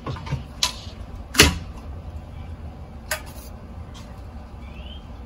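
Ceiling fan blades snapping into place on the motor housing: three sharp clicks, the loudest about a second and a half in, over a low steady rumble.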